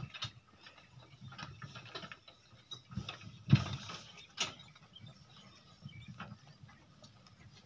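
Irregular clicking and knocking from a bullock cart heavily loaded with paddy straw as the bullocks pull it, with a sharp knock about three and a half seconds in.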